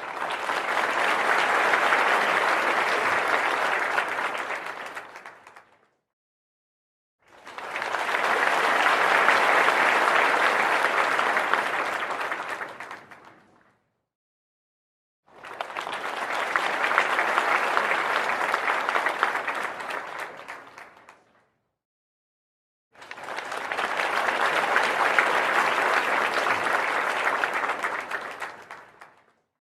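Audience applause in four separate rounds, each about six seconds long, swelling quickly and then dying away, with short silent gaps between them.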